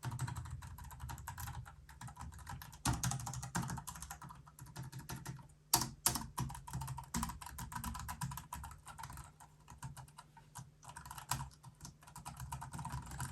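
Keys being pressed on a Trust Nado compact wireless keyboard: a fast, irregular run of light key clicks, with a few louder strokes about three and six seconds in.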